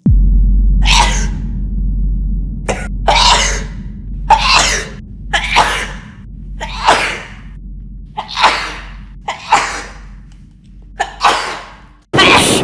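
A woman's sneezing fit: about eight forceful sneezes in a row, roughly one every second or so, some with a quick sharp intake before them, over a steady low hum.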